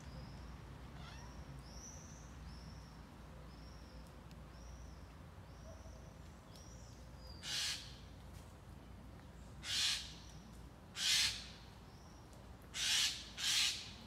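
Eurasian magpie giving five harsh, rasping chatter calls, the last two close together, while faint, high whistled bird notes repeat about once a second in the first half.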